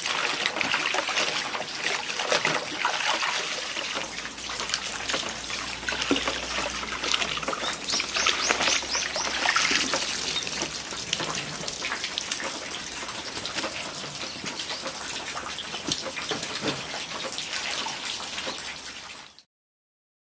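Water splashing and trickling as salted napa cabbage is rinsed and rubbed by hand in a basin of running water. The sound stops abruptly near the end.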